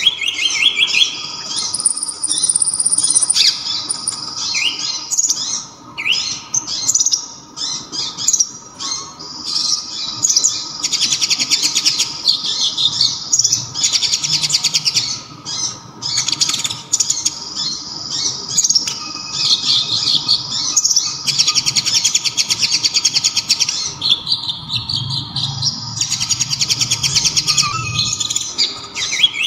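A sunbird, the Indonesian 'kolibri ninja', singing loud, sharp, high twittering phrases and rapid buzzing trills one after another with only short pauses.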